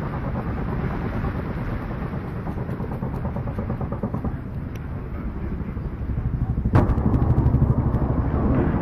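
Helicopter running, its rotors making a rapid, steady low pulsing that grows louder in the last two seconds. There is a single sharp crack about seven seconds in.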